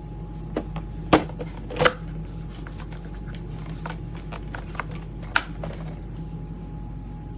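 Scattered sharp clicks and knocks of handling, the loudest about a second in, just before two seconds and a little past five seconds, over a steady low hum.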